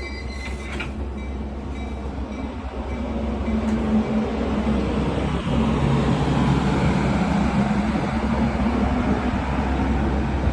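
Metra diesel commuter train moving, its rumble growing louder over the first few seconds and then holding steady, with a low steady engine hum underneath.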